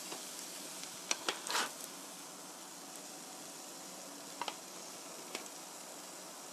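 A slotted spatula clicking and scraping against the frying pan and plate as a pancake is lifted out and set down: a quick cluster of clicks about a second in, then two lighter taps later, over a steady faint hiss.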